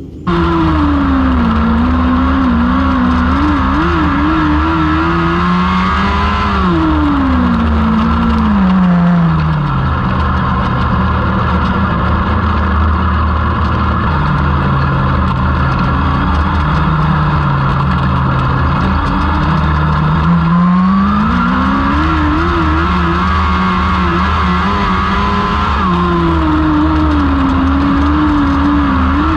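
A Lightning sprint car's 1000cc motorcycle engine running hard. Its pitch falls over several seconds, holds low for a long stretch, then climbs back up and stays high near the end.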